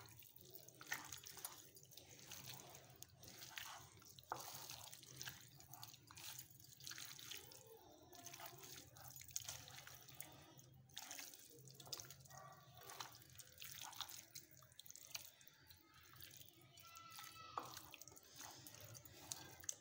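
Faint wet squelching of bare hands mixing fish pieces in a yogurt, vinegar and spice marinade in a glass bowl, with many small irregular clicks.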